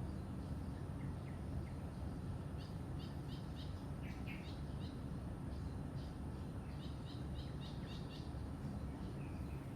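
Songbirds chirping in short, high notes, several in quick runs of four or five, over a steady low outdoor rumble.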